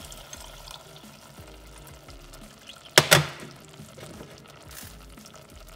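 Tamarind juice poured from a glass container through a small mesh strainer into a steel saucepan, a soft trickle of liquid. About three seconds in come two sharp knocks close together, the loudest sound here.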